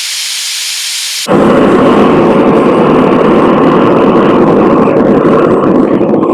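Two-burner Devil Forge propane forge running: a thin high hiss, then about a second in an abrupt jump to a loud, steady rushing burner noise that holds to the end.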